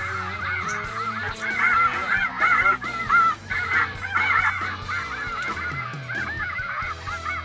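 A large flock of light geese calling, many overlapping honks at once, with music running underneath.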